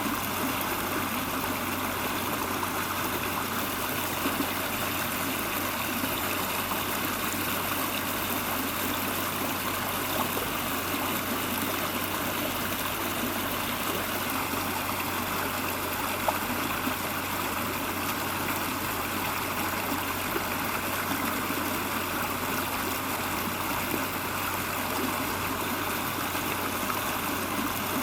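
Steady rush of flowing water, like a stream, with a few faint clicks.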